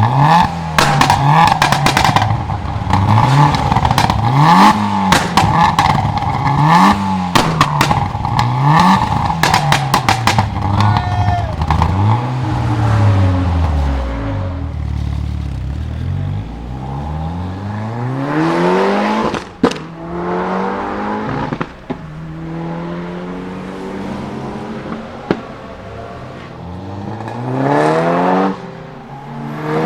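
Mitsubishi Lancer Evo VI's turbocharged 4G63 inline-four revved hard about every two seconds, with the anti-lag system's rapid misfiring pops and bangs over each rev. After about 12 s the revs fall away, then the car accelerates with the pitch rising, with a single loud bang about 20 s in and another about 22 s in, and a second rising pull near the end.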